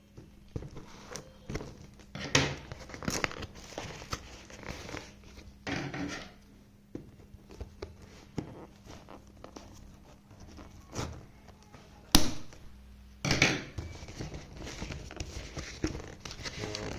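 Packaging of a Pureit Germkill Kit being opened by hand: irregular crinkling, rustling and tearing with scattered clicks and knocks, the loudest a sharp click about two-thirds through.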